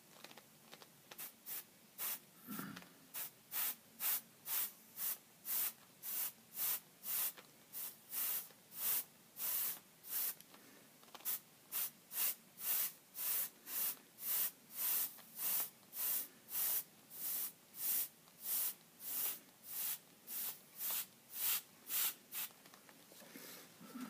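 Airbrush spraying paint in short hissing spurts, about two a second, the trigger pulsed on and off, stopping near the end.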